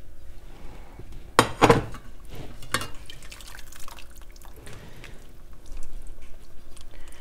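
Lamb stock dripping and trickling from a stainless-steel colander insert into a pot of vegetable broth. The steel pans clank a few times, loudest about one and a half seconds in and again near three seconds.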